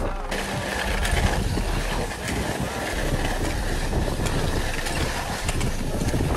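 Skis sliding over snow with wind rushing across the microphone: a steady rushing hiss over a low rumble.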